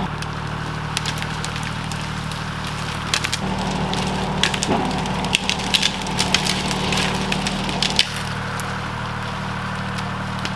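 A motor-driven tool running steadily while cutting into pine, with many sharp cracks and snaps of splintering wood, thickest in the middle and stopping about eight seconds in.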